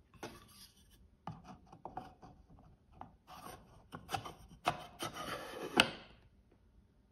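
Hands handling a wooden watch box and its lid: rubbing and scraping with light knocks on the wood. A single sharp knock near the end is the loudest.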